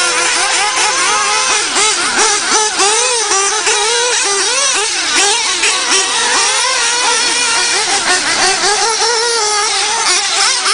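Several radio-controlled racing cars running together, their small high-pitched engines rising and falling in pitch as they accelerate and slow through the corners.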